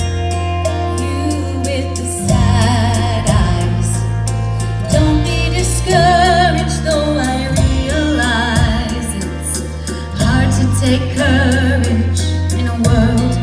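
Music with a singing voice, which comes in about two seconds in with a wide vibrato, over held bass notes and a fast ticking beat.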